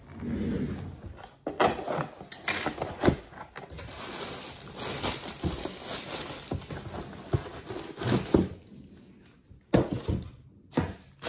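Unboxing handling noise: a cardboard box opened and a plastic-wrapped insulated water jug pulled out, with crinkling plastic wrap, cardboard scraping and scattered knocks and thumps.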